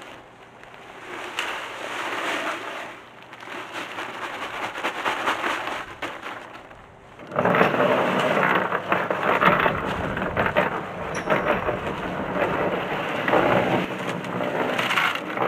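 Electric concrete mixer running, its drum churning a gravel and cement mix with a steady grinding rattle. About seven seconds in the churning suddenly gets much louder and stays that way.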